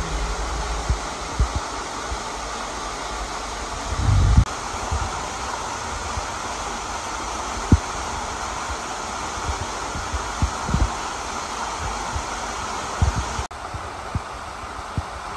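Steady rushing of a waterfall, with scattered low thumps on the microphone. The level drops suddenly near the end.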